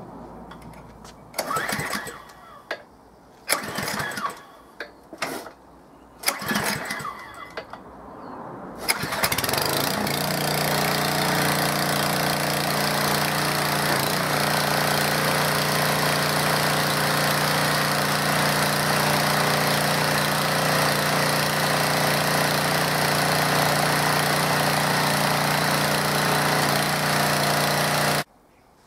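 Petrol pressure washer engine being pull-started: several short pulls of the recoil starter, then it catches about nine seconds in and runs steadily until the sound stops suddenly near the end.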